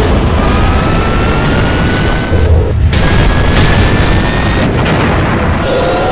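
Loud action-film sound effects of a jet-propelled craft in flight: steady engine noise with a low rumble and slowly rising whines, booms, and music underneath.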